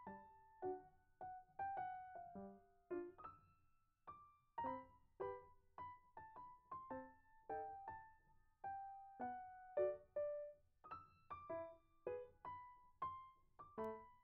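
Quiet background music: a light melody of separate keyboard notes, about two a second, each fading quickly.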